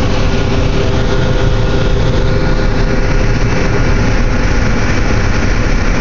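John Deere 9750STS combine running steadily under load while harvesting corn, heard from inside the cab: the engine and threshing machinery make a constant dense drone with a few faint steady tones on top.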